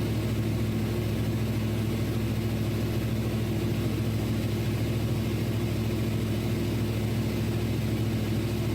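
1995 Chevy Tahoe idling with the air conditioning on: a steady low engine hum with an even rush of air from the dash blower.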